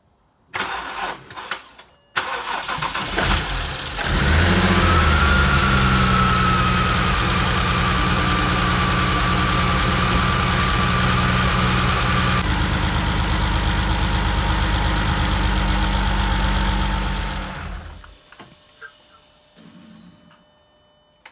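BMW 335i's single-turbo N54 straight-six cranked on the starter, catching about four seconds in and running steadily. A thin high whine sounds over the first several seconds of running, and the engine is shut off near the end. This is a test start after refitting the water pump, power steering pump and serpentine belt, to check for leaks.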